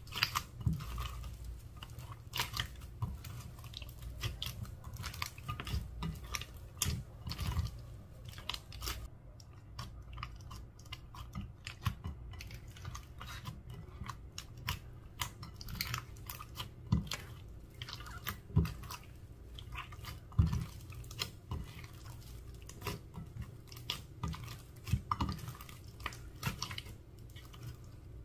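Clear slime being mixed and worked, giving off a steady run of irregular sticky clicks and crackles.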